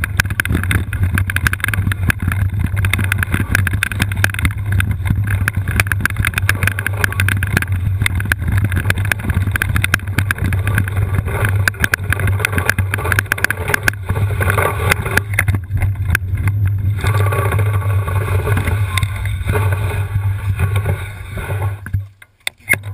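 All-terrain wheelchair rolling down a rough trail: a continuous low rumble with rattling and wind noise on the microphone. It cuts off sharply near the end.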